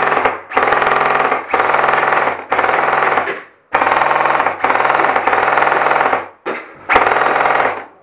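Airsoft rifle firing repeated full-auto bursts, about seven in all, each roughly a second long with short pauses between them, the rapid cycling of the gun making a fast buzzing rattle.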